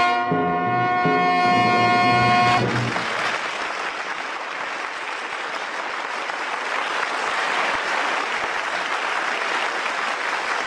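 A radio orchestra's brass-led dramatic chord is held and cut off about two and a half seconds in, the music sting that closes an act. Studio audience applause follows.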